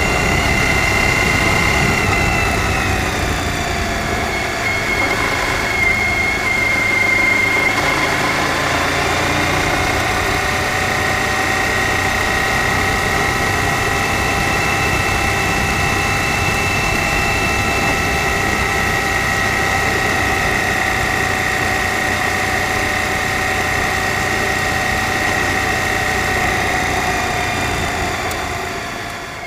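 Suzuki V-Strom DL1000's V-twin engine running steadily as the motorcycle rides along a gravel road, with a steady high whine over it. The sound fades out near the end.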